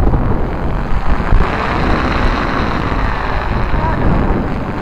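Firefox stunt kites with a 3.3 m wingspan roaring as they sweep through the air in formation, over heavy wind buffeting on the microphone. The noise is steady and swells a little about a second in.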